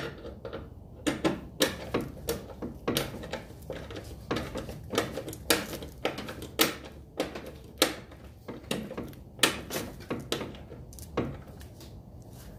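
Sharp metallic clicks and knocks at an irregular pace, about one or two a second, from hand tools working on a car's front suspension.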